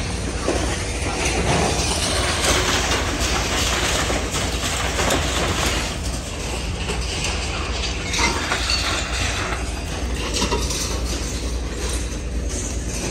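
An industrial car shredder plant and its conveyors running: a steady low hum under constant metallic clatter and knocking.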